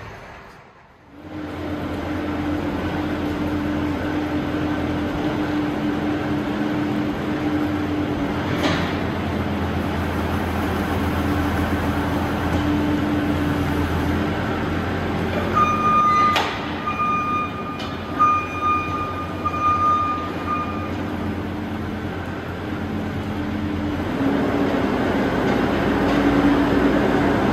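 Diesel engine of a New Holland compact track loader running steadily as it pushes a pulling tractor into a trailer on a tow bar. A run of short high beeps sounds about halfway through, with a couple of sharp knocks.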